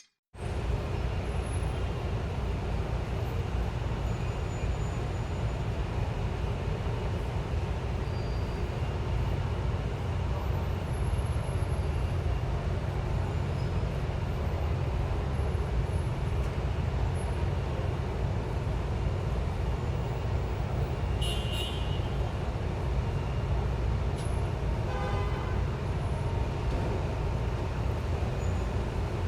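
City street traffic heard from eight floors up: a steady low rumble of cars, buses and trucks, with a couple of brief high-pitched tones in the second half.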